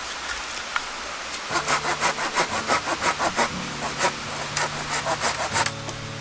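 Hand saw cutting wood, a run of quick back-and-forth strokes that begins about a second and a half in and stops shortly before the end. A quiet background of steady noise comes before it.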